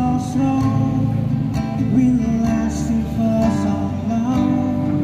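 Live band music: guitars strummed and plucked, with a voice singing a melody over them.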